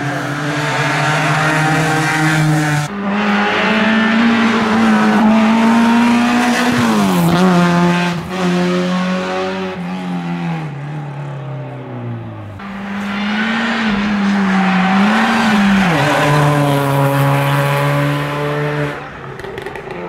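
Hill-climb race cars' engines at full throttle, one car after another, revving hard through the gears. Near the middle the pitch drops sharply in steps as a car brakes and downshifts for the hairpin, and from about 13 s another car revs up, wavers and drops again near 16 s.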